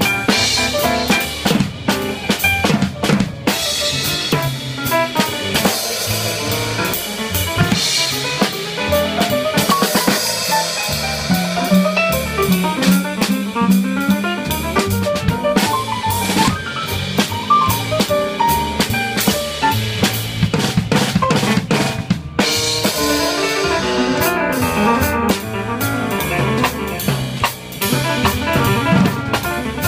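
Live jazz played on a drum kit to the fore, with busy snare, bass drum and rimshot hits over pitched notes from the band. The playing breaks off for a moment about two-thirds of the way through, then carries on.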